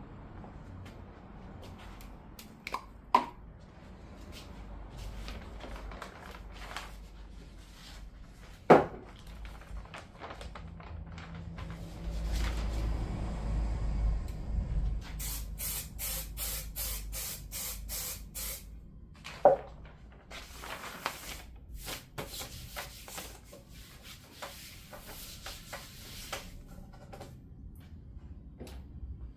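Spray bottle squirting in a quick run of about eight even strokes, then more spraying, as the paper draft is put onto the wooden board. A few sharp knocks of handling stand out before it.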